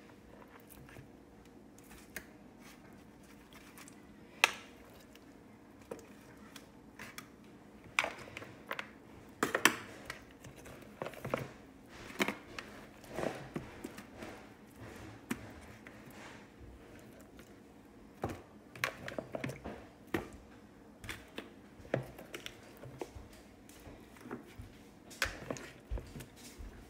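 Marinated raw chicken pieces being picked out of a plastic bowl by hand and set down on a metal baking sheet: irregular wet squelches and light taps, a few of them sharper.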